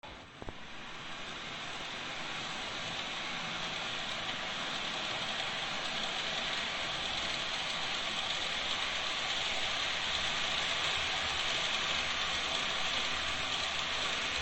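N gauge model train running on its track: a steady whirring rush of the small motor and wheels on the rails, growing louder over the first couple of seconds, then holding even.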